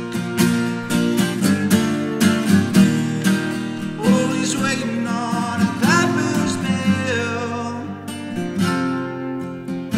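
Acoustic guitar with a capo on the neck, strummed steadily in an instrumental passage of a song, chords ringing between strokes.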